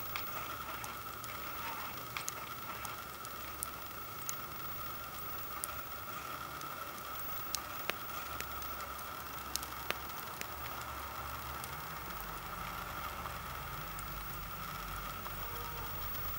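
Wood campfire crackling, with a sharp pop or snap every second or two over a steady background hiss.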